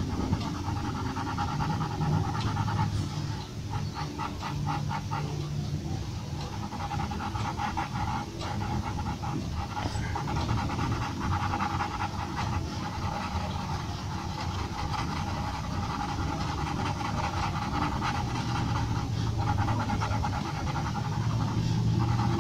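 Graphite pencil scratching on drawing paper in quick, short shading strokes, a dense run of fine scratches.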